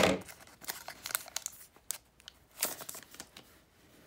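Foil wrapper of an opened Pokémon booster pack crinkling as the cards are pulled out, with a loud rustle at the start and then a few shorter, irregular crinkles.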